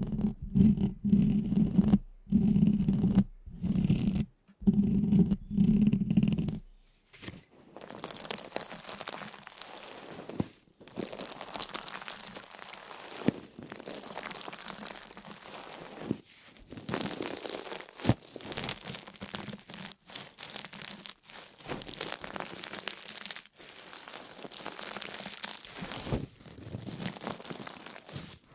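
A low hum in short on-off bursts for the first several seconds, then a long run of crackling, crunching noise.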